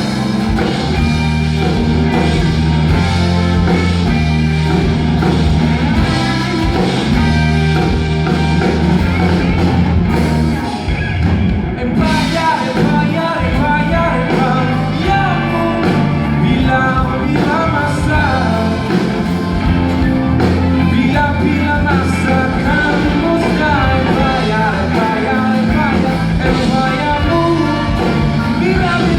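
Live rock band playing, with electric guitar, bass and drums. Most of the sound briefly drops away about eleven seconds in, then the full band comes back in.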